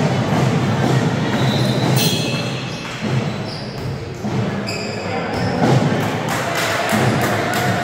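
Volleyball thumping on hands and floor now and then, over steady background music.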